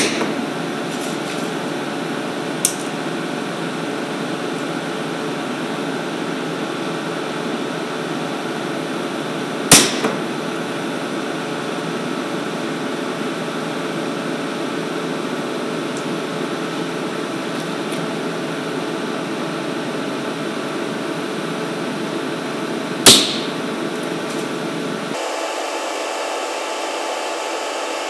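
Stud welding gun firing, each weld a single sharp crack: one right at the start, one about ten seconds in and one about twenty-three seconds in, with a fainter click a few seconds after the first. A steady machine hum runs underneath.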